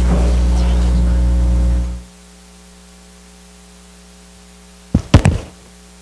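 A loud, steady electrical mains hum from the church sound system cuts off sharply about two seconds in. A few sharp thumps from the microphone being handled follow about five seconds in.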